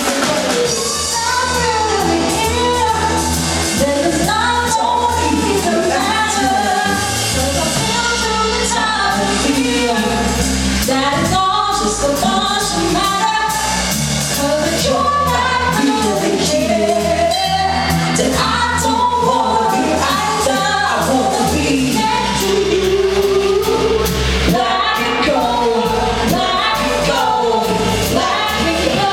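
A song sung over accompanying music with a steady beat and bass, running through a sound check.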